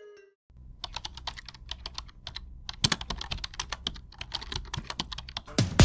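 Computer keyboard typing: a quick, irregular run of key clicks starting about half a second in.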